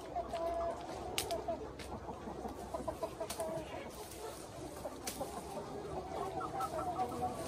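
A flock of young Minh Du chickens clucking and chattering continuously, with a few sharp clicks scattered through.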